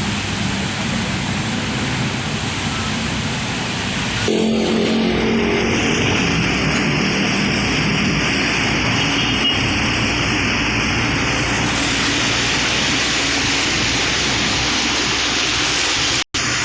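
Excavator engine running steadily under load, with an abrupt change about four seconds in and a momentary dropout near the end.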